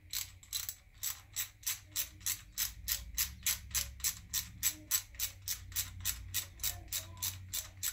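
Hand ratchet wrench clicking steadily, about three to four clicks a second, as it runs down the timing chain tensioner bolts on a GM Quad 4 engine.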